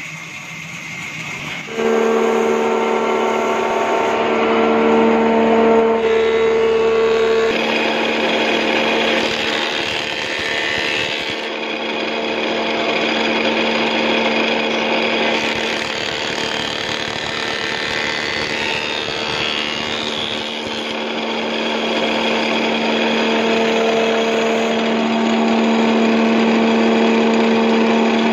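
Woodworking machine running with a steady hum as its spinning cutter head shapes a wooden cooking spatula blank, with a rough cutting noise as the wood is fed over it. The noise starts loud about two seconds in, after a quieter start.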